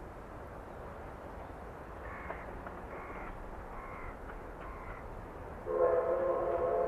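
A crow cawing four times, about once a second. Near the end a loud, steady sound of several held tones starts suddenly.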